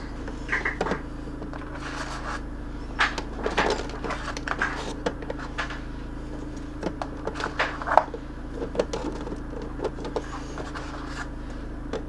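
Eggs being set one by one into an Instant Pot's inner pot, with irregular light clicks and taps as the shells knock against each other and the pot. A generator's steady hum runs underneath.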